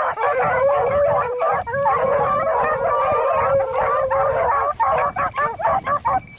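A pack of beagles baying together on a rabbit's scent, many voices overlapping in long drawn-out howls, thinning to shorter, choppier cries near the end.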